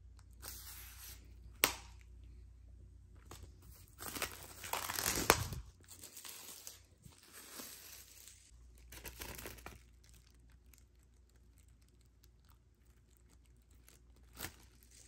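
Plastic shrink wrap being slit with a knife and torn and peeled off a vinyl LP jacket, the cellophane crinkling and rustling in bursts, loudest about four to five seconds in. A sharp click comes twice, once early and once near the end.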